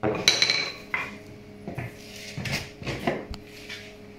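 Hammer knocking parquet boards tight against each other on a tapping tool: about six or seven irregular sharp knocks, some with a short metallic ring.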